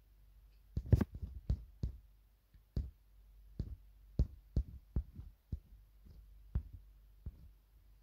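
About a dozen irregular sharp taps and knocks, the loudest about a second in, from fingers tapping and handling a phone while scrolling through a video-editing timeline.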